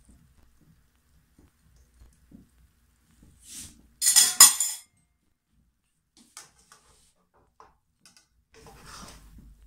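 A loud, ringing clink of kitchenware about four seconds in. Near the end, a metal spatula scrapes and stirs cauliflower in the pan.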